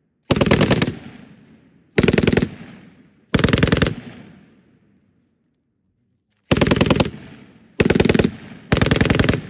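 M240B machine gun firing six short bursts of rapid shots, each about half a second long and each dying away in echo. There is a pause of about two seconds in the middle, then the last three bursts come close together.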